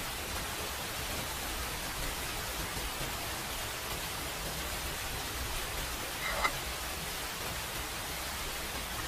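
Steady, even hiss of background noise, with one brief, high, squeaky sound about six and a half seconds in.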